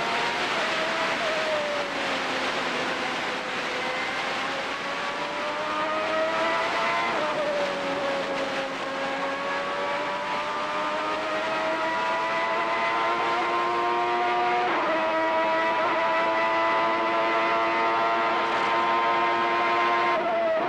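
Ferrari 3.5-litre V12 Formula 1 engine heard onboard at racing speed, its pitch sagging and climbing as the car runs through the corners and straights. There are sudden gear-change steps about seven and fifteen seconds in, and the revs fall right at the end. Wind and road noise run underneath.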